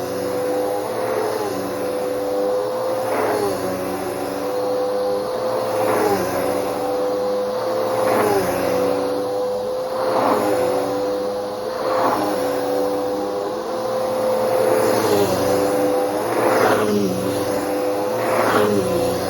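Bissell Powerforce Helix 3313 upright vacuum cleaner running with a steady motor whine. Its pitch dips and swells about every two seconds as it is pushed back and forth in vacuuming strokes.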